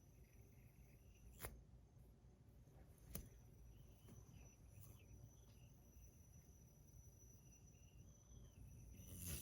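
Near silence: faint room tone, with two short faint clicks about a second and a half and three seconds in.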